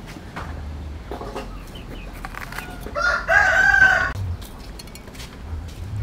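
A rooster crows once, about three seconds in, for about a second; it is the loudest sound. A knife taps lightly on a wooden chopping board as a bell pepper is cut.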